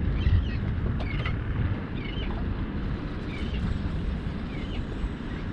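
Wind buffeting the microphone over water lapping around a small fishing boat, a steady low rush. Short high chirps come roughly once a second.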